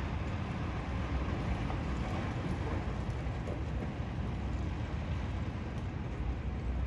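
Salt-spreader truck's engine running as it drives through the intersection: a steady low rumble.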